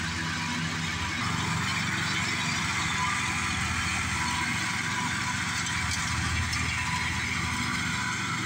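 Riding lawn mower's engine running steadily under load as it cuts dry grass, driving past close by.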